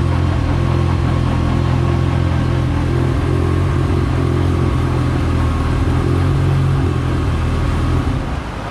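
Turbocharged Honda H22 four-cylinder engine running at a steady speed on a hub dyno, dropping off about eight seconds in.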